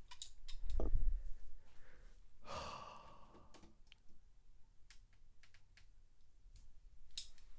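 Diecast toy cars being handled, with scattered small clicks as they are picked from a plastic storage case and set into a plastic track's starting gate. A dull thump about a second in is the loudest sound, and a breathy exhale like a sigh follows around three seconds in.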